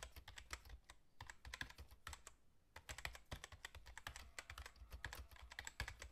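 Quiet computer keyboard typing: rapid, irregular key clicks, pausing briefly about a second in and again around two and a half seconds in.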